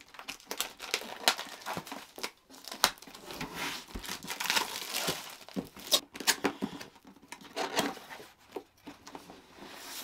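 A power supply's cardboard retail box being unpacked by hand: irregular rustling and crinkling with tearing and small knocks, sharpest about three and six seconds in, and the inner box's cardboard flaps opened near the end.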